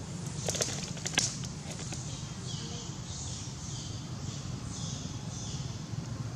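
Dry twigs rustling and snapping as a baby macaque handles and climbs through them, with a few sharp cracks about a second in. From about two seconds in, a high, hissy call repeats about twice a second in the background.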